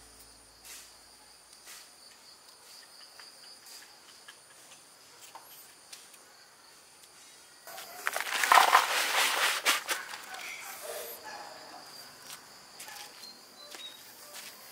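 Faint insect chirring with scattered small clicks. About eight seconds in, a loud burst of rustling noise lasts roughly two seconds, then dies away.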